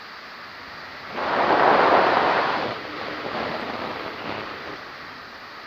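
Wind rushing over the microphone in flight, a noisy rush that swells sharply about a second in and eases off over the next couple of seconds.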